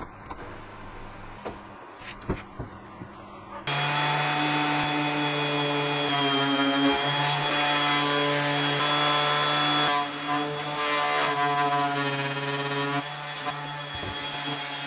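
A few clicks from a quick-grip bar clamp being squeezed tight on wood, then a DeWalt random orbital sander switched on suddenly about four seconds in and running steadily as it sands a wooden panel.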